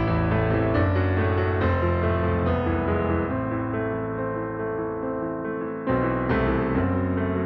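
Background piano music: slow sustained chords, with a new chord struck about six seconds in.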